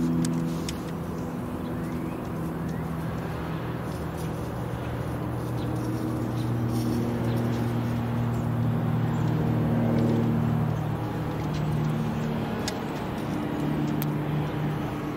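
Tecnam P2012 Traveller's twin piston engines and propellers droning overhead at cruising altitude: a steady low hum of several tones that waver and drift in pitch.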